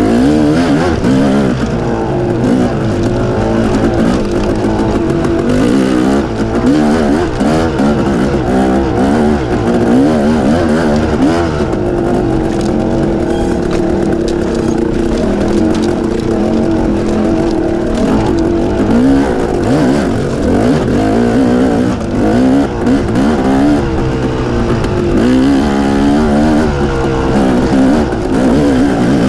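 Dirt bike engine running hard, its pitch rising and falling constantly as the throttle is worked on and off.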